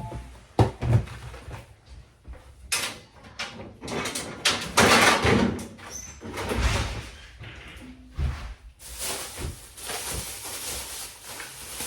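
Groceries being handled and put away: a series of knocks, thuds and short rustles, with doors or drawers sliding and shutting.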